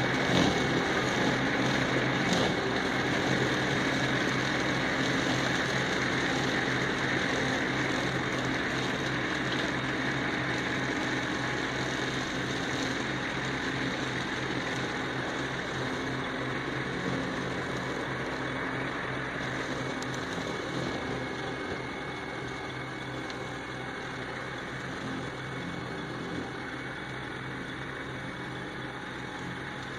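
New Holland 7630 tractor's diesel engine running with its Lavrale articulated side-arm mower cutting roadside brush. A steady engine drone sits under a hiss from the cutting head, and both fade slowly as the tractor moves away.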